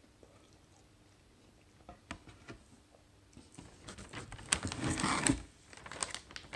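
Biting into and chewing a crisp battered chicken dipper: scattered clicks from about two seconds in, building to a dense crunching about four seconds in.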